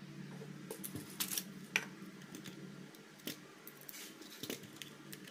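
Hands handling a wired gaming mouse and a screwdriver bit set on a desk mat: a scattered series of light clicks and knocks of plastic and metal as the mouse is turned over and the bit holder set down, over a faint steady low hum.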